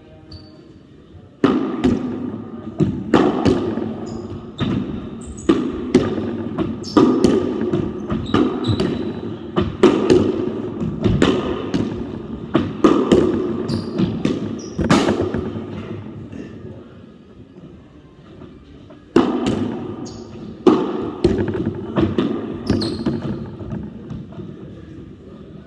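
Rackets striking a ball in a rally, the ball smacking off the walls and wooden floor of a squash court, every impact ringing in the court's echo. The hits come about once a second, stop for a few seconds past the middle, then resume for a few more.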